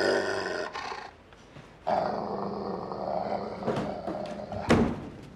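A dog growling and snarling in two bouts, the first dying away about a second in and the second from about two seconds to four and a half. A sharp thud comes near the end.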